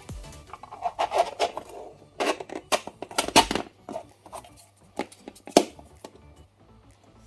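Close hand-handling noises at a workbench: an irregular run of clicks, taps and scrapes of small parts being handled, busiest in the first few seconds, with one sharper click a little past the middle, then fainter near the end.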